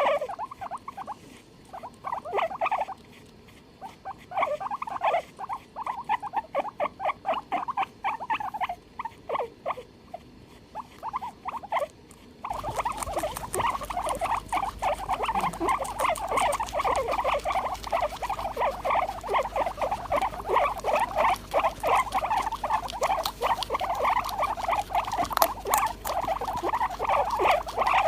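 Guinea pig squealing in a rapid run of short, repeated squeaks. About halfway through, the recording changes abruptly: background hiss rises and the squeaks come thicker and steadier.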